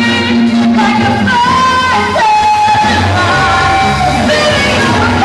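Live band playing a pop-rock song: women singing lead into microphones over electric guitar, bass guitar and drums, with held, bending sung notes.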